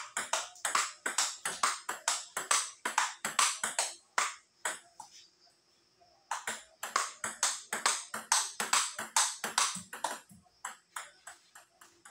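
Table tennis ball being hit back and forth in a fast rally: sharp clicks of the celluloid-type ball off rubber paddles and the table top, about three to four a second. The hits thin out briefly about halfway through, then the rally picks up again.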